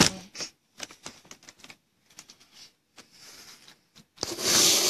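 Irregular clicks of typing on a keyboard, then a loud rush of noise lasting about a second near the end.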